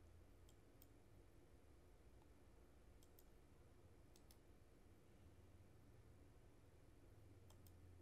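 Faint computer mouse clicks, four pairs of quick clicks spread over several seconds, against near-silent room tone with a steady low hum.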